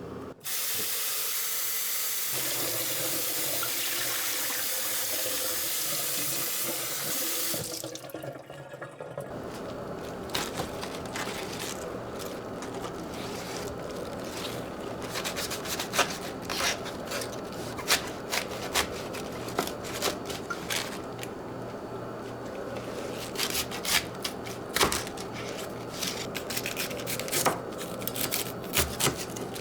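Kitchen tap running in a steady stream for about seven seconds, then turned off. After it come scattered sharp clicks and light knocks of kitchen handling.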